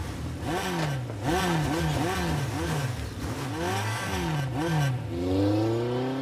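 Suzuki GSX-R sport bike's engine revved in a rapid series of blips, each a quick rise and fall in pitch, about three a second. About five seconds in it changes to one long, steadily rising rev as the bike pulls away.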